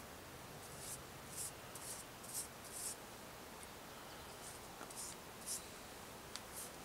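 Short, faint scratchy strokes of a small hand tool scraping a rusty axe head. There is a quick run of about six scrapes, a pause, three more, then a sharp tick near the end.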